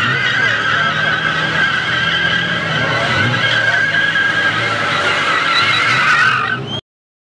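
A car doing donuts, its tyres squealing in a steady, wavering screech over the running engine. It cuts off suddenly near the end.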